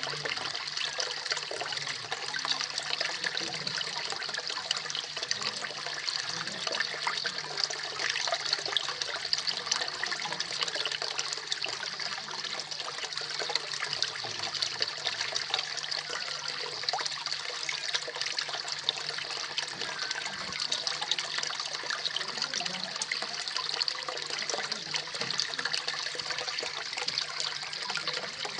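Small koi pond waterfall: water spilling and splashing steadily into the pond, a continuous bright trickle and patter.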